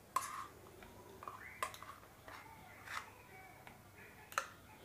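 Ground rice batter being scooped from a steel mixer jar into a plastic bowl: faint scraping with four light knocks, spaced more than a second apart.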